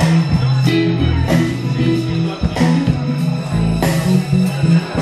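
Music with a bass line and a steady beat.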